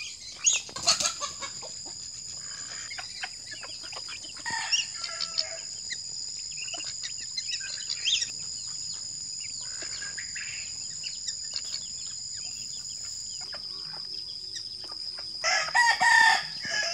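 Farmyard poultry calling as a mixed flock feeds: scattered clucks and short calls, the loudest burst near the end, over a steady high-pitched whine.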